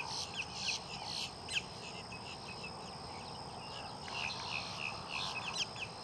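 Faint natural ambience at a bird rookery: a steady stream of short, falling chirps, several a second, over a steady high hum and a low background hiss.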